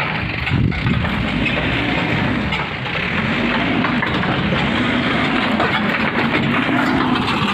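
Backhoe loader's diesel engine running steadily, with a note that rises a little near the end.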